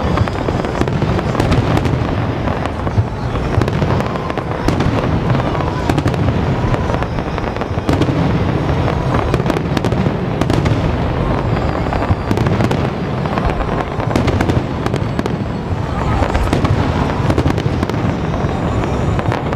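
Dense barrage of aerial firework shells bursting: overlapping booms with rapid pops and crackles, loud and without a break.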